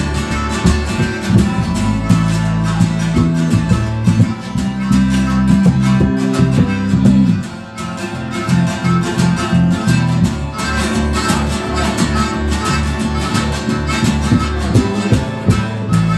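Live country-style song: an acoustic guitar strummed in a steady rhythm, with a harmonica played over it.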